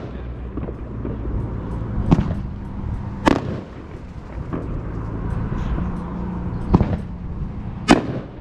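A 500-gram firework cake (Brothers Fireworks Perfect Game) firing its shells, which burst in sharp bangs. There are loud reports about two, three, seven and eight seconds in, with smaller pops between, over a steady low hum.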